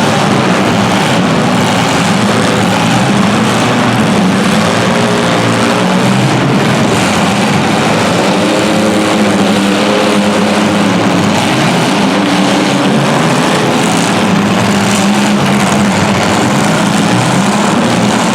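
Engines of compact cars running loudly and steadily, their pitch wavering up and down as they rev.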